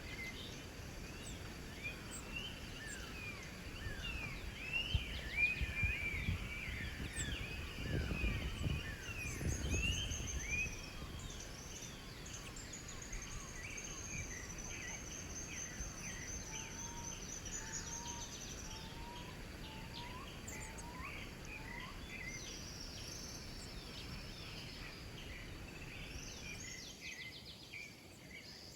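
Several birds chirping and calling together, dense quick chirps in the first half and a long high trill through the middle. A short run of five lower rising whistled notes comes about two-thirds of the way in, with a low rumble near the start of the busy stretch.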